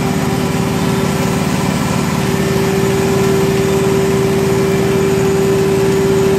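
1 HP milking machine's vacuum pump unit running steadily under milking: a constant hum with a fast, even pulsing underneath.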